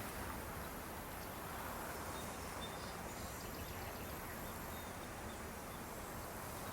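Faint, steady outdoor background hiss, with a few very faint short high sounds in the middle.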